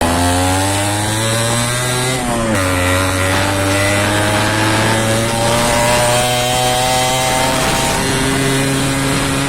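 Yamaha RX100's two-stroke single-cylinder engine running under load. Its pitch climbs slowly, drops sharply about two and a half seconds in, then climbs slowly again.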